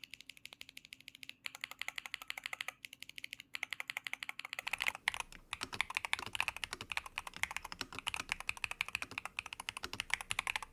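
Typing on a Mchose Mix87 keyboard with Gateron Apollo magnetic switches on an aluminium plate in a tray mount: a quick stream of key clacks, sparser at first and faster and denser from about five seconds in.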